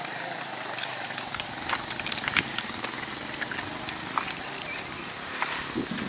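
Outdoor ambience: a steady high hiss with scattered short clicks and chirps.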